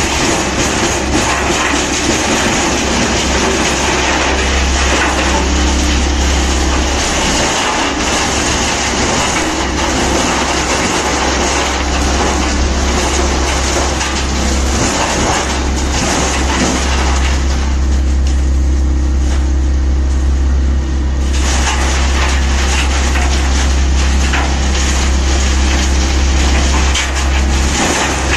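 Large wood chipper running under load: a steady low engine drone beneath a loud, rough chipping and grinding noise. The grinding drops away for a few seconds in the middle, leaving the drone, then comes back.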